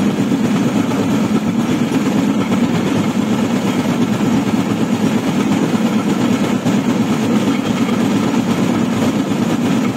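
Railway motor trolley running along the track: a steady engine drone blended with the rumble of its wheels on the rails.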